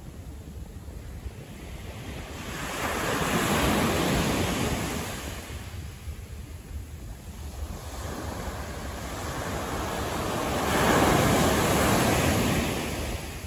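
Street traffic passing by, heard as two rising and falling swells of road noise: one about four seconds in, and a louder one near the end.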